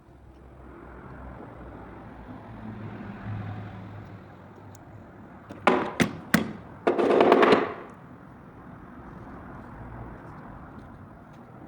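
Lada car engine running steadily, with three sharp loud pops about six seconds in followed by a loud burst of noise lasting nearly a second.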